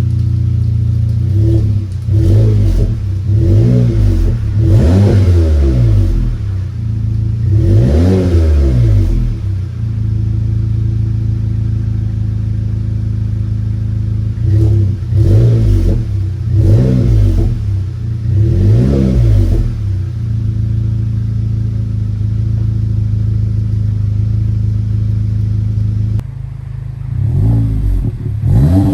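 VW Golf GTI MK7's EA888 2.0-litre turbo four-cylinder, through a Scorpion non-resonated cat-back exhaust, idling with repeated quick throttle blips. Each rev rises and falls back to idle, in runs of three or four separated by stretches of plain idle.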